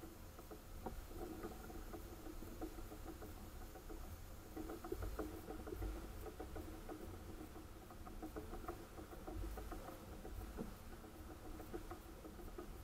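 Fishing reel being cranked in, with irregular small ticks and a faint whirr from its gears, over a low rumble.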